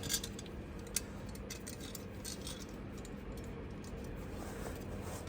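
Quiet workshop background: a steady low hum with a couple of faint light clicks, one about a second in.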